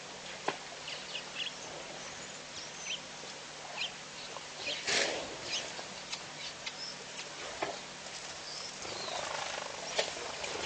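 Wild birds calling in short, scattered chirps, with a few sharp clicks and a louder, noisy sound about five seconds in.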